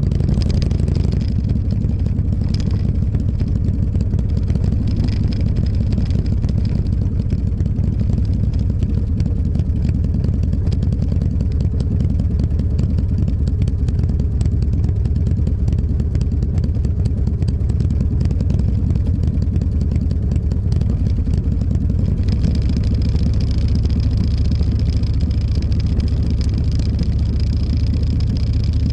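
Motorcycle engine running at a steady, even speed while riding, with a constant low rumble.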